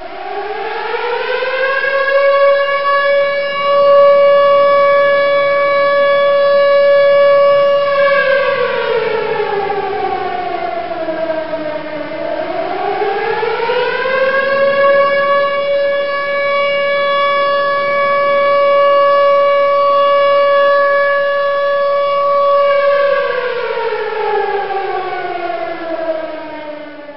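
Outdoor civil defense warning siren winding up to a steady high tone and holding it, falling in pitch about eight seconds in, winding back up and holding again, then falling away near the end.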